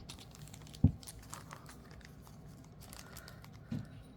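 Plastic packaging crinkling and rustling as it is handled, with a sharp dull thump about a second in and a softer one near the end.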